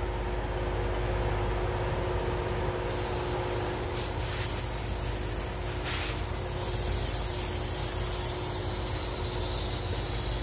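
Water rushing through a just-opened wheel-handle shutoff valve as the drained hot-water riser refills: a steady hiss that turns brighter about three seconds in, over a low steady hum.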